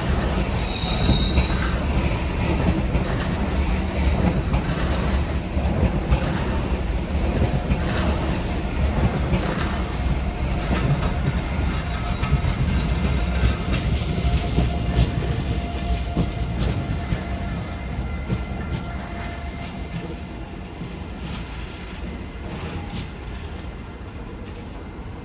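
Renfe electric passenger train with Talgo coaches passing close by: a heavy wheel-on-rail rumble with repeated clicks over the rail joints and brief wheel squeals. It fades steadily over the last several seconds as the train moves away.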